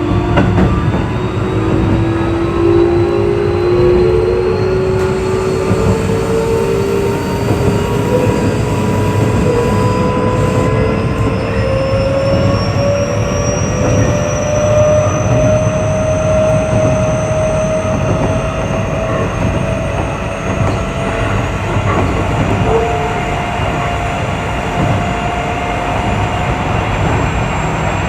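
Keio 8000 series electric train running on the line. The whine of its VVVF inverter and traction motors rises slowly and steadily in pitch as it gathers speed, over a continuous rumble of wheels on rail.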